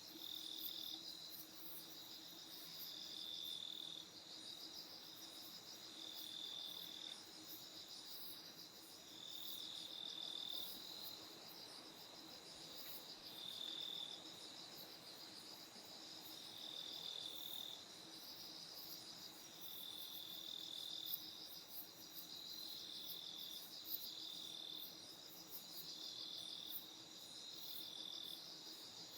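Night insects chirping in a steady chorus: high, continuous pulsed trilling with chirps repeating about every second or two, over a faint low steady hum.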